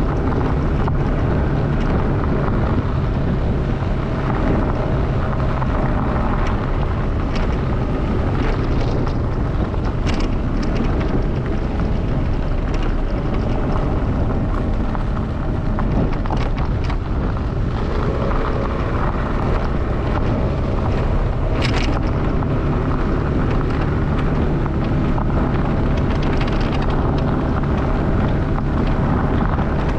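A motor vehicle driving steadily along a gravel road, its engine running at an even pitch under wind noise on the microphone. A few short clicks from loose stones are mixed in.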